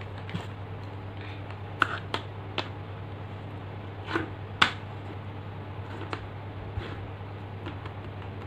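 Small clear plastic cases being handled and set down on a tabletop: a scattering of light clicks and taps, the sharpest a little past the middle, over a steady low hum.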